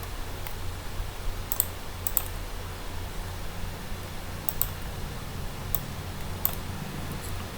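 Scattered computer mouse and keyboard clicks, several in quick pairs, over a steady low electrical hum.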